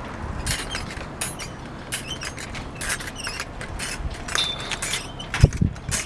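Roofing work while plywood sheathing is laid on a roof deck: scattered sharp clicks and knocks, with a heavier thump about five and a half seconds in.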